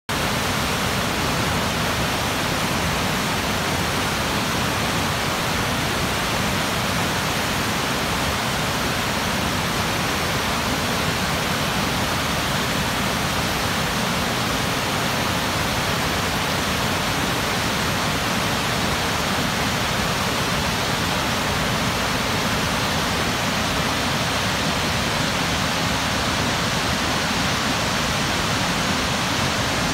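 The Potomac River's Great Falls: whitewater rapids pouring and churning over rocks, a steady, unbroken rush of water.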